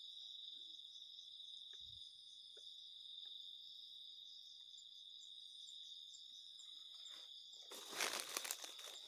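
Steady night chorus of crickets and other insects, a continuous high-pitched trill. Near the end there is a brief, louder burst of rustling and crunching, like dry leaves or brush being disturbed.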